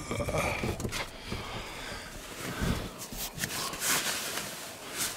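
Irregular rustles and knocks of gear being handled and rummaged through.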